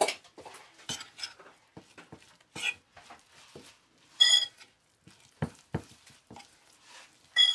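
A spoon stirring a thick chilli-flake and spice marinade in a bowl: irregular wet scrapes and clicks, with two brief ringing clinks of the spoon against the bowl, about four seconds in and near the end.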